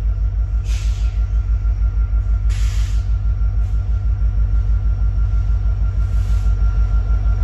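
Approaching freight train's diesel locomotives: a loud, low, pulsing engine rumble, about five throbs a second. Three short hisses come through about a second, three seconds and six seconds in.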